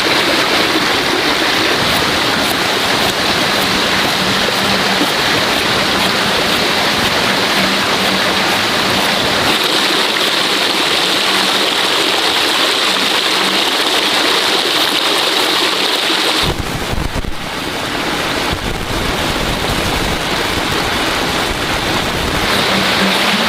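Steady, loud rush of running water, with a brief dip and a change in its tone about two-thirds of the way through.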